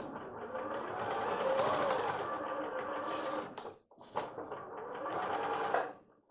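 bernette b38 electronic sewing machine stitching a seam in two runs: one of almost four seconds, a brief stop, then about two seconds more.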